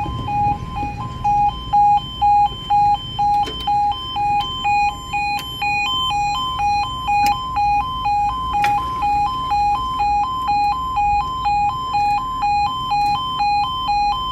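Level crossing audible warning sounding: a two-tone yodel that swaps between two pitches about twice a second, with a few faint clicks under it.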